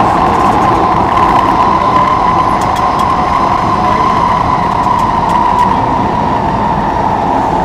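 Singapore MRT North-South Line train running at speed, heard from inside the carriage: a loud, steady rumble of wheels on rail with a droning tone over it.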